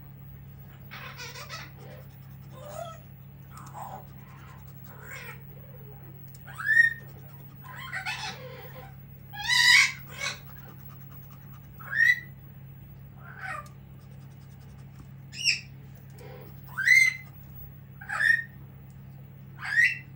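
Pet parrot calling over and over in short, loud calls, roughly one every second or two, several of them rising to a sharp upward hook.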